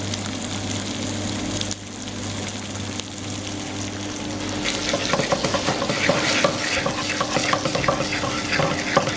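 Crusted tuna pieces sizzling in hot extra-virgin olive oil in a frying pan as they sear, the crackling growing louder and denser about halfway through, over a steady low hum.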